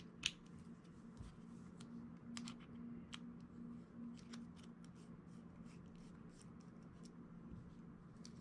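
Faint small metallic clicks and scrapes of a flathead screwdriver turning a screw out of a folding knife, over a low steady hum.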